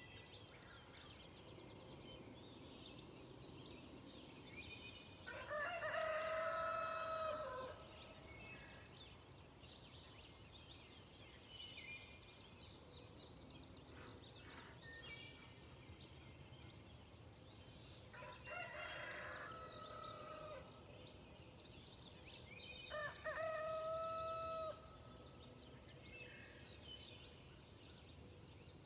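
A rooster crowing three times, each crow about two seconds long, over small birds chirping steadily in the dawn chorus.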